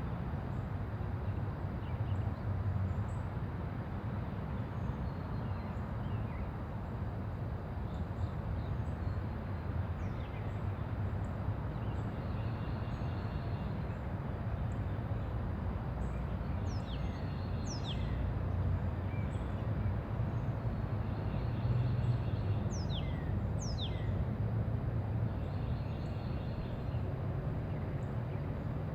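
Quiet residential neighbourhood ambience: a steady low rumble of distant traffic under birds chirping. A few sharp, high down-slurred bird calls come in the second half.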